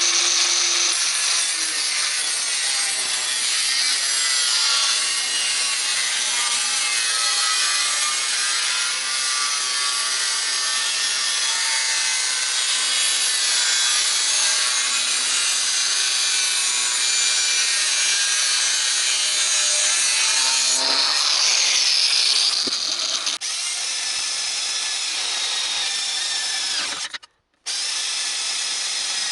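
Handheld electric power tool running under load on metal, its motor pitch drifting up and down. The sound changes about 21 seconds in and cuts out briefly near the end.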